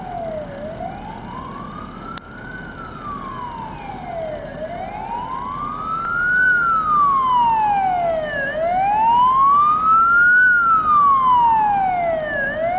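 Fire engine siren wailing, its pitch slowly rising and falling about every four seconds and growing louder from about halfway through.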